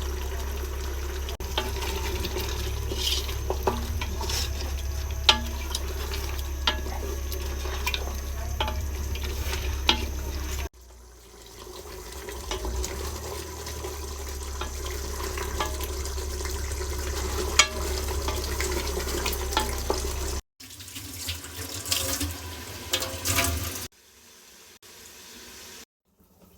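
Water running, like a tap into a sink, with scattered sharp clicks and clinks. The sound cuts off and changes abruptly about ten seconds in and twice more near the end.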